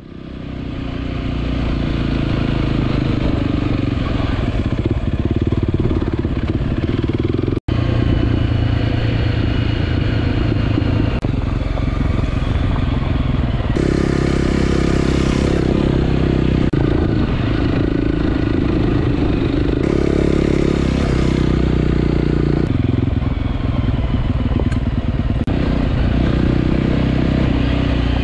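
Honda CRF250L's single-cylinder four-stroke engine running at an easy, steady pace as the motorcycle is ridden along a forest road. It fades in at the start and breaks off for an instant about seven and a half seconds in.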